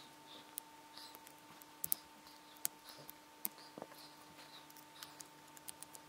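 Small, sharp, irregular clicks and scratches of a metal mesh strap being worked into the lug of an Amazfit Bip smartwatch's plastic case by hand, over a faint steady hum.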